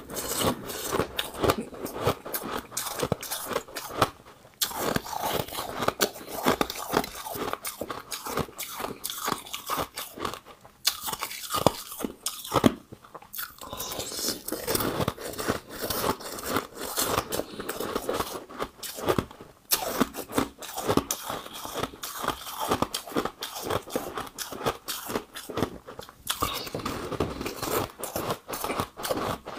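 Frosty pink ice balls being bitten and chewed close to the microphone: dense, crackly ice crunching, broken by a few brief pauses.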